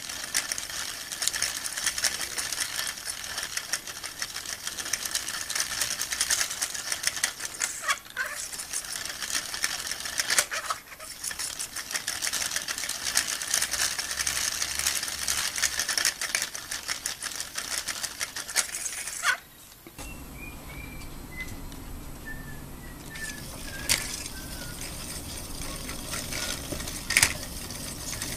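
Hand-cranked Lego Technic governor model: plastic gears and axles rattling with a dense stream of fast clicks. About nineteen seconds in, the sound drops to a quieter, lower whir with a few sharp clicks as the model spins.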